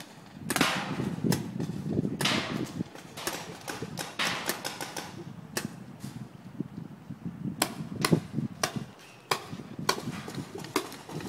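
Paintball markers firing, a string of sharp irregular pops spaced a fraction of a second to about a second apart, with two short rushes of noise near the start.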